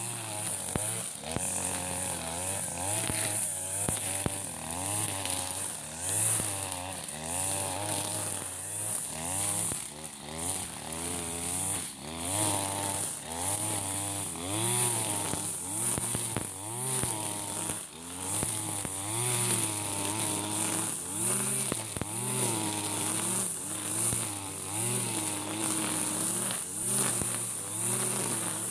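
Backpack brush cutter's small petrol engine cutting tall overgrown grass. It revs up and down about once a second, the pitch rising and falling with each swing of the shaft.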